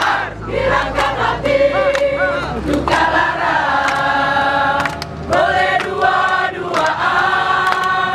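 A crowd of untrained men's and women's voices sings an Indonesian song together as an informal choir, with several long held notes.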